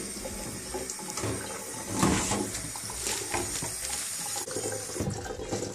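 Kitchen tap running into a stainless steel sink, the water splashing over fresh herbs in a plastic salad-spinner basket as they are rinsed, a little louder for a moment about two seconds in.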